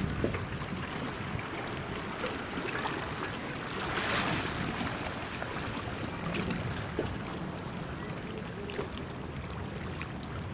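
Calm sea water lapping and washing against the rocks of a breakwater, with wind rumbling on the microphone; a louder wash swells up about four seconds in.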